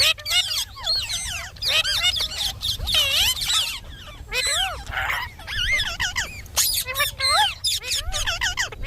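Indian ringneck parakeet chattering: a rapid, almost unbroken run of squawks and whistled calls that slide up and down in pitch.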